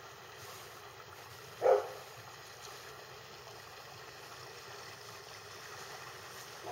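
The distant fishing boat's motor running with a faint steady hum across the water. A single short, loud dog bark comes about a second and a half in.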